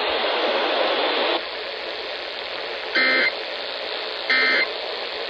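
Radio static hissing, louder for the first second and a half, then two short identical bursts of warbling digital data tones about a second and a quarter apart. These are the Emergency Alert System's SAME end-of-message code that closes the required weekly test.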